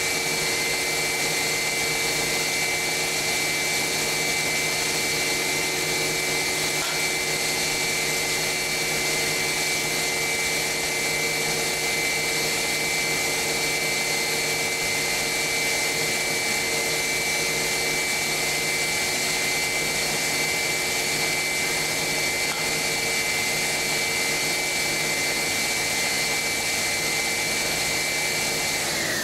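Belt grinding machine for glass edges running steadily, a motor whine over a constant hiss. Right at the end the whine falls in pitch and the sound fades as the machine is switched off and spins down.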